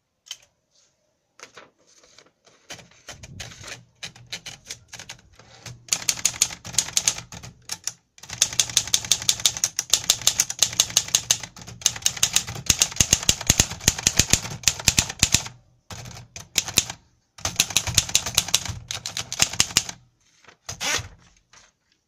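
1958 Keller und Knappich Princess 300 manual portable typewriter being typed on. After a few scattered clicks, long runs of rapid key strikes start a few seconds in, broken by short pauses.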